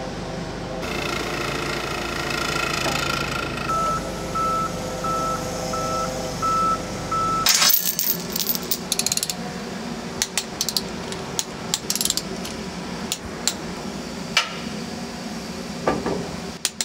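Forklift running with a steady hum, then its warning beeper sounding a series of short beeps at one pitch. Then steel lifting chains clinking and rattling with sharp metal clicks as they are handled and unhooked.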